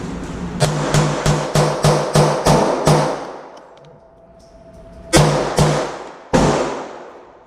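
Semi-automatic firearm fired rapidly at a gun range: about eight shots in quick succession, roughly three a second, then after a pause three more shots, each ringing out in the range.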